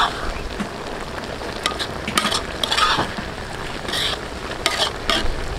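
Fish broth simmering and bubbling in a large metal wok, with a metal ladle scraping and clinking against the pan several times as it is stirred or spooned.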